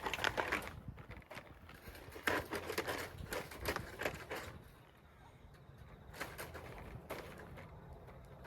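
Chicken-wire mesh rattling and clinking against the fence wire as it is hooked on, in a run of irregular short knocks that thin out after about four and a half seconds.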